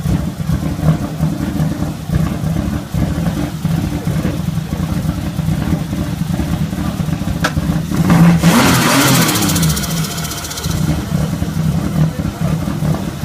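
Turbocharged BMW E36 325i straight-six idling with a lumpy beat, then blipped once about eight seconds in. As the revs fall back there is a loud hissing flutter from the turbo, the chatter of compressor surge when the throttle snaps shut.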